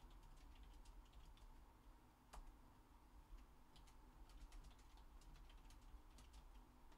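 Faint computer keyboard typing: a run of quick keystrokes at the start, a single sharper click a little over two seconds in, and a denser run of keystrokes in the second half.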